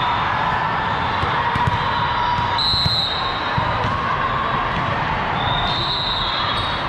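Steady din of a busy volleyball tournament hall, with volleyballs being hit and bouncing on the court.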